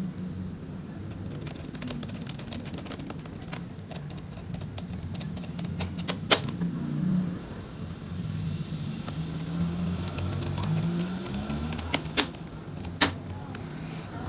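Light clicks and taps of a screwdriver and small screws being worked on a Lenovo G400s laptop, with a sharper click about halfway through and two more near the end. Under them is a low, wavering engine rumble of a vehicle in the background.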